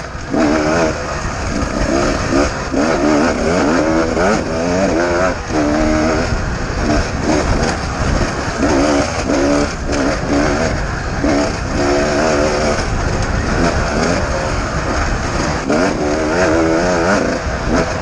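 Beta 250RR two-stroke enduro motorcycle engine, ridden hard, its pitch rising and falling over and over as the throttle is opened and closed and the gears change.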